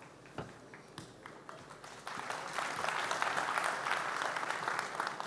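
Audience applauding: a few scattered claps at first, swelling into fuller applause about two seconds in.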